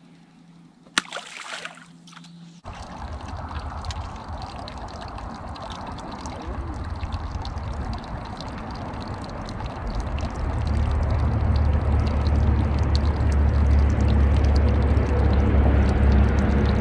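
Water trickling and sloshing, with a steady low rumble that grows louder about ten seconds in. Before that there is a short quiet stretch with one sharp knock about a second in.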